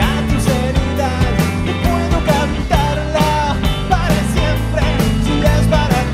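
Live rock band playing loudly: drums, electric guitar and bass, with a man's voice singing over them.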